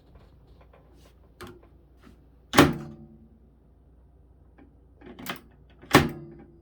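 Sharp knocks and clunks from handling an opened-up microwave: lighter taps, and two loud clunks with a brief ring about two and a half and six seconds in.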